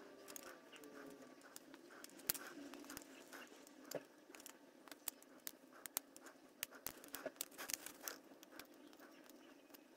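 Small side cutters snipping through the plastic wheel arch of a model car body: a series of faint sharp clicks, the loudest about two seconds in, with quicker snips in the second half.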